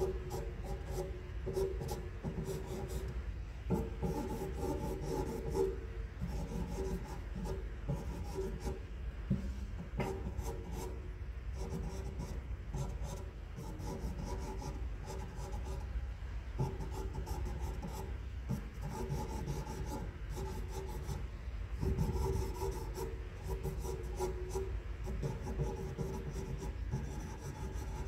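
Faber-Castell pastel pencil scratching across Strathmore charcoal paper in quick, repeated sketching strokes. The strokes come in runs separated by short pauses.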